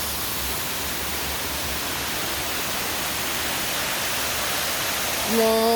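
Waterfall rushing with a steady hiss of falling water. Near the end a person's voice comes in on a drawn-out, steady note, louder than the water.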